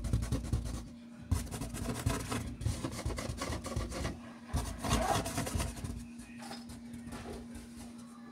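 Scraping and rustling against corrugated cardboard in three spells over the first six seconds, dense with small scratchy clicks, then quieter.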